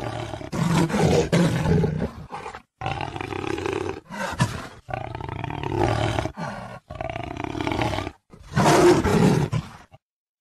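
Jaguar snarling in a run of about five rough calls, each one to two seconds long, with short breaks between them.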